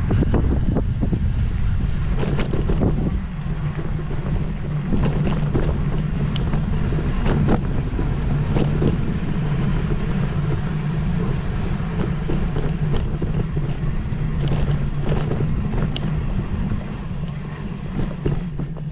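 Steady low engine drone with wind noise on the microphone, and scattered knocks and rattles throughout.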